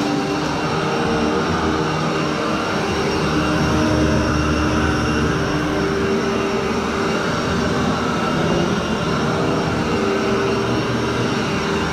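Royal commercial upright vacuum cleaner running steadily as it is pushed over wall-to-wall carpet, a loud whir of motor and rushing air with a few held tones. It is pre-vacuuming, pulling dry soil out of the carpet before cleaning.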